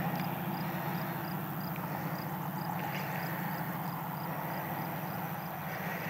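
Steady low engine hum, like a vehicle idling, with a faint regular high ticking two or three times a second; no siren tone.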